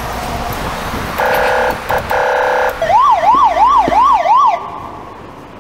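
Car-alarm siren: a rising hiss leads into a few steady blaring tones, then a fast up-and-down wail of about six rises and falls that stops about a second before the end.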